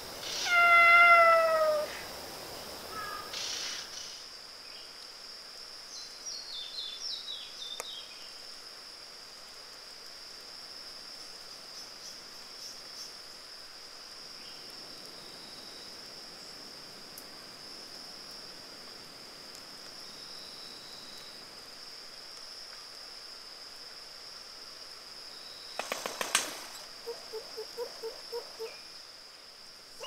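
Vogelkop bowerbird calling: a loud drawn-out call falling slightly in pitch at the start, later a quick series of short high descending notes, and near the end a brief rustling burst followed by a run of rapid low notes. A steady high thin drone sits in the background throughout.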